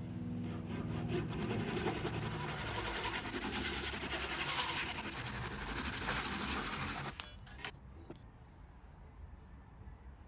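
Japanese ryoba pull saw (Suizan 9.5-inch) cutting through wood in a steady run of strokes that stops about seven seconds in, followed by a single knock.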